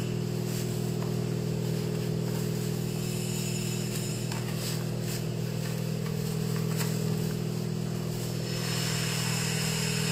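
A steady low mechanical hum, with a few faint crinkles of baking paper as hands press a warm marshmallow biscuit mixture into a lined tray.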